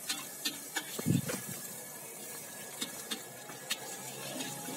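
An egg frying in oil in a metal wok, a faint steady sizzle with scattered small ticks and pops. A short low sound comes about a second in.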